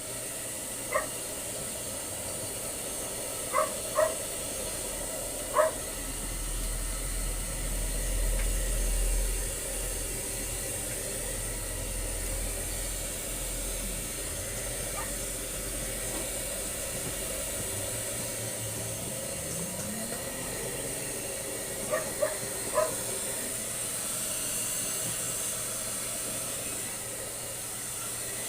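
A dog gives short, high yips several times, in small groups, over a steady hiss.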